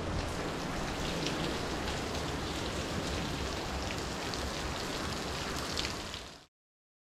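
Steady rain falling, a dense even hiss with scattered drop ticks through it; it cuts off suddenly about six and a half seconds in.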